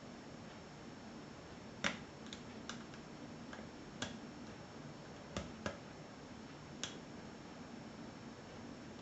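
Small sharp clicks of a lock pick working the pin stack of a five-pin Euro profile cylinder under tension, about eight scattered irregularly, the loudest about two seconds in.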